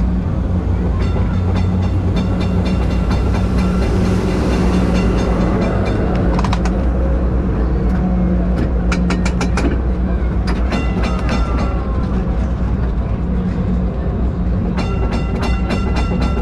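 Istanbul heritage tram rolling along its street track, heard from on board: a steady low motor hum under the rumble of the wheels, with bursts of sharp clicks and rattles over the rails about six seconds in, around nine to ten seconds, and again near the end.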